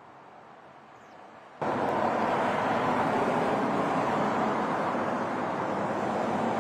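Quiet background, then about one and a half seconds in an abrupt switch to a louder, steady outdoor rushing noise of street ambience, with no distinct events in it.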